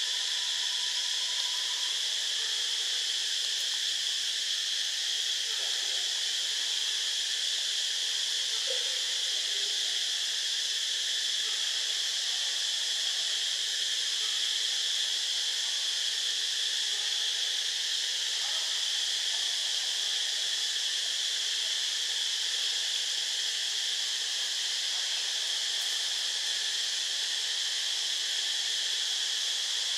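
Steady, high-pitched insect chorus, unbroken throughout.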